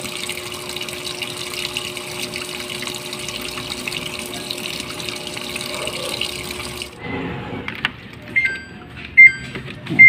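Water rushing into a Samsung automatic washing machine's tub through its inlet valve, with a steady hum under it, cutting off suddenly about seven seconds in. A couple of short electronic beeps and a loud click follow near the end.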